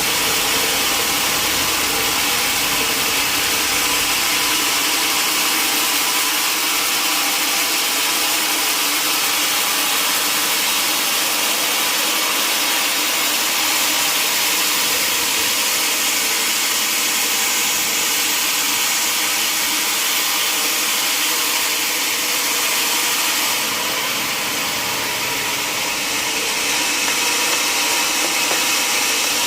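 Sawmill saw running steadily through a log, a continuous high, hissing cutting noise that eases a little about three-quarters of the way through.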